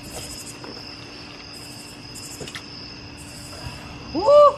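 Crickets chirping in repeated pulses over a steady insect drone. Near the end a person lets out one short, loud shout that rises and then holds.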